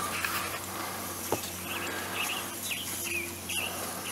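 A bird chirps several short times over a steady low hum.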